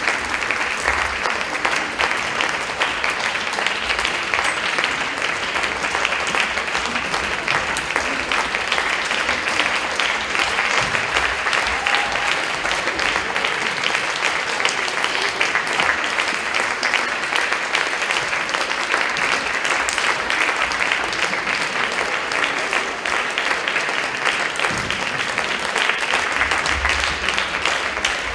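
Concert audience applauding steadily, many hands clapping in a dense, even patter.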